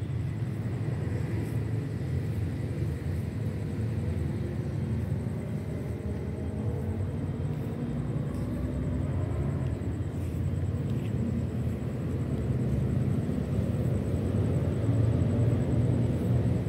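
Low, steady rumble of road traffic, with an engine passing about halfway through, its pitch shifting as it goes by. The rumble grows louder near the end.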